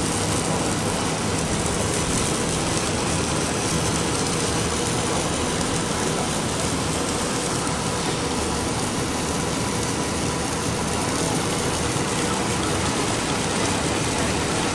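Steady mechanical din of a running core-filling snack extrusion line, with its twin-screw extruder and roller machine working, and a faint steady whine running through it.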